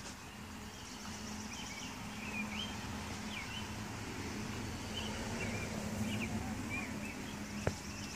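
A bird singing a string of short, sliding chirps over a steady low hum, with one sharp click near the end.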